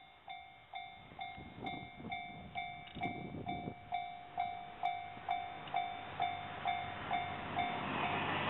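Japanese railway level-crossing warning bell ringing steadily at about two dings a second: the signal that a train is coming. Near the end, the rushing noise of the arriving train swells and drowns out the bell.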